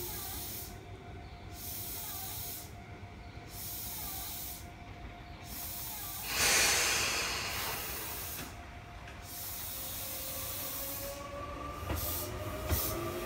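Tobu 20050 series electric train standing at the platform with a steady electrical hum, then a loud burst of compressed-air hiss about six seconds in. Near the end it starts to pull away, with a rising whine from the traction motors and a couple of clicks.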